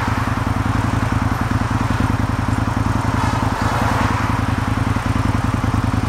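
Diesel engine of a John Deere 225D hi-rail excavator running steadily with a rapid even pulse, with a rushing noise over it.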